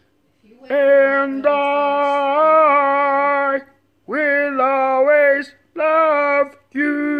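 A person singing a slow tune in long held notes with a slight waver, in several phrases separated by short breaths, after a brief silence at the start.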